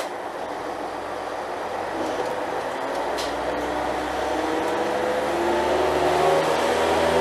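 Diesel engine of an Alstom Coradia LINT 41 diesel multiple unit revving up, its pitch and loudness rising steadily from about two seconds in.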